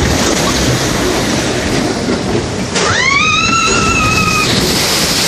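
Log flume boat running down its drop with rushing noise; about three seconds in a rider lets out one long, high scream, and near the end the boat hits the water with a splash.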